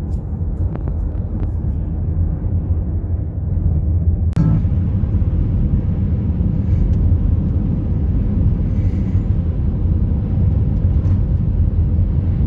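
Steady low rumble of tyre and engine noise inside a car's cabin while driving on the highway, with a brief dropout about four seconds in.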